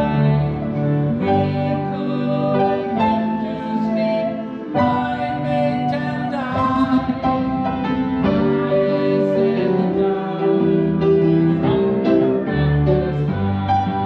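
A solo voice singing held, wavering notes with grand piano accompaniment.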